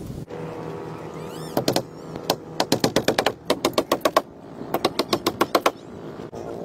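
Quick runs of sharp hammer taps on the wooden frame of a boat built from plastic drums, about six to eight strikes a second in several bursts, over a steady low hum.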